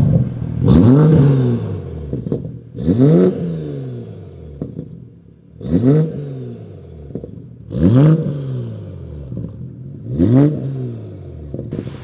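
Toyota MK5 Supra with a full titanium single-exit exhaust, revved in five quick throttle blips about every two to two and a half seconds. Each rev rises sharply and falls back to idle.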